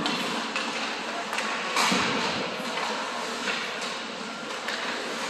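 Ice hockey play in a rink: a steady scraping hiss of skates on the ice, broken by several sharp clacks of sticks and puck, the loudest about two seconds in.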